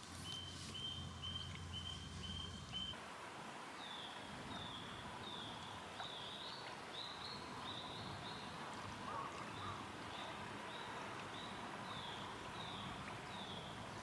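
Birds calling over outdoor ambience: a run of short, even, high chirps, then from about three seconds in a long series of short downward-slurred calls, roughly two a second.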